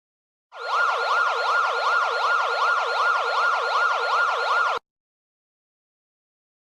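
Electronic siren alarm tone sweeping rapidly up and down, about two and a half sweeps a second, over a steady hiss. It starts about half a second in and cuts off abruptly near five seconds.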